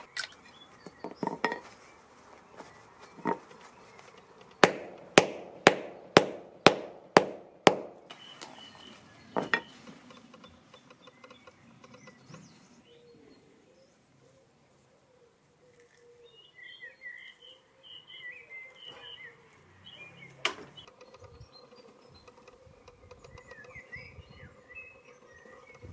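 Hammer striking scrap TV parts: a run of seven sharp blows about half a second apart, with a few single knocks before and after. Faint bird chirps in the quieter later part.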